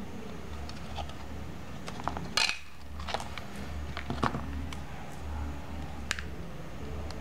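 Scattered plastic clicks and knocks from a flip phone and its back cover being handled, the loudest about two and a half seconds in, over a steady low hum.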